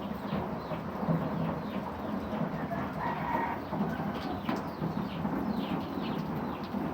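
Steady rain, with birds calling over it: many short, falling chirps, and a fuller call about three seconds in.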